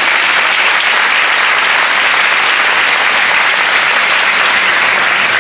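An audience applauding steadily after a congratulation, a dense even clapping that fades out at the end.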